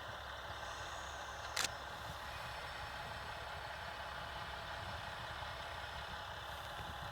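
KiHa 120 series diesel railcar's engine running steadily with a low hum, with one short, sharp hiss about a second and a half in.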